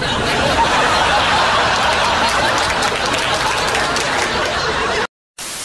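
A crowd laughing and chattering, loud and dense, cutting off abruptly about five seconds in. This is followed by a short burst of static hiss.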